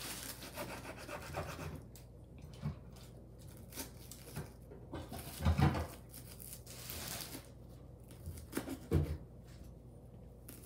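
Chef's knife chopping a red onion into small pieces on a wooden cutting board: irregular taps of the blade against the board, with two louder knocks, one about halfway through and one near the end.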